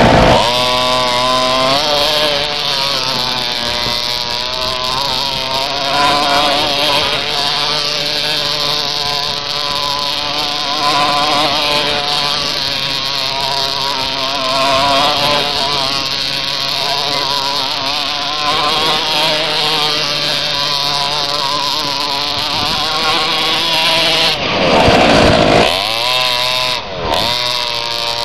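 Nitro RC monster truck's small two-stroke glow engine with a tuned pipe, running at high revs as it is driven, its buzzing pitch wavering up and down with the throttle. Near the end the pitch swoops sharply up and down a couple of times.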